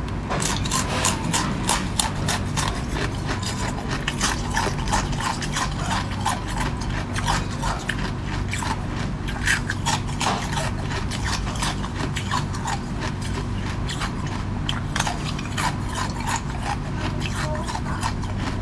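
Close-miked crunching and chewing of hard frozen ice, a fast, dense run of sharp crackles and snaps over a low steady hum.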